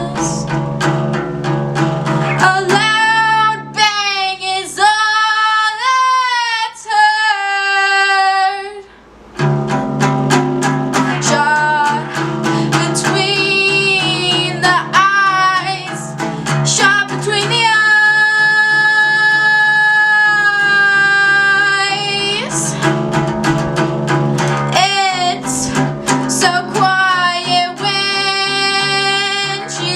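A song with a sung vocal over guitar-led backing. About a third of the way in, the backing drops out for under a second, then the full mix comes back in.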